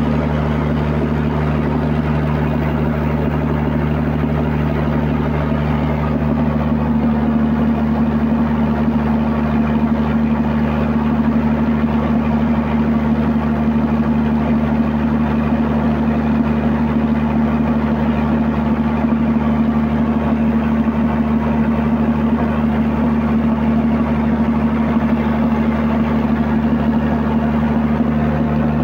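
Large diesel generator engine running steadily with a deep, even hum. The uploader takes the sound, along with the dark exhaust smoke, as a sign that something is wrong with the engine.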